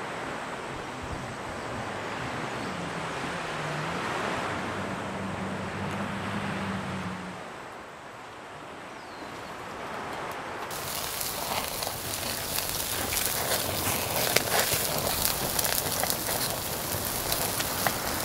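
Wind and surf at the shore, with a low engine hum for a few seconds. About ten seconds in, meat laid on a charcoal grill starts sizzling and crackling loudly, with many sharp pops.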